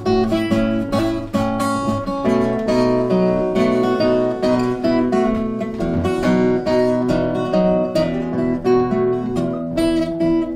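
Steel-string acoustic guitar played solo: picked notes and chords in a steady rhythm.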